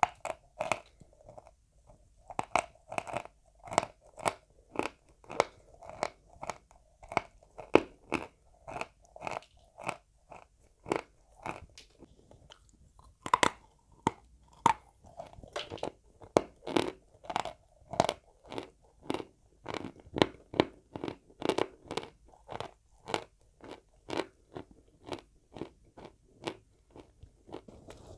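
Dry white chalk crunched between the teeth, chewed in a steady rhythm of about two crunches a second, with a fresh bite after a short pause about halfway through.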